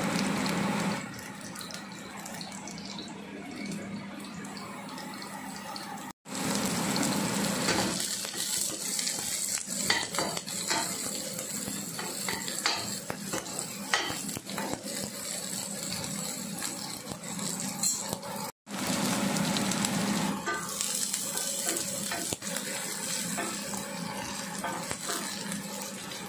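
Sliced garlic, onion and carrot sizzling in hot oil in a frying pan, with a spatula scraping and clicking against the pan as the vegetables are stir-fried. The sound cuts out abruptly twice.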